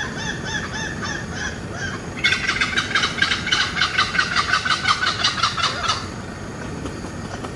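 Bird calls: short repeated calls several times a second, then a louder, faster run of pulsed calls from about two seconds in that stops suddenly about six seconds in.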